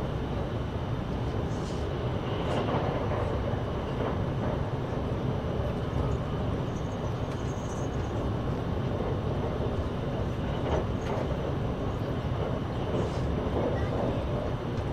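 Passenger train running: a steady low rumble with faint clicks now and then.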